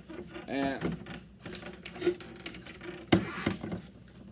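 Objects being handled and set down on a hard surface: light clicks and rattles, with a sharp knock about three seconds in.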